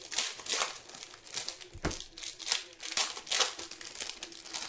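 Crinkling plastic wrappers of trading card packs being handled and opened: a quick, irregular run of sharp crackles.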